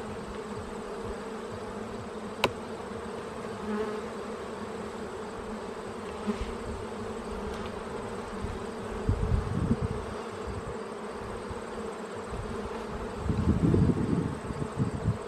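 Honeybee colony buzzing from an open hive, a steady hum of many bees. A sharp click comes about two and a half seconds in, and low bumps are heard around the middle and again near the end.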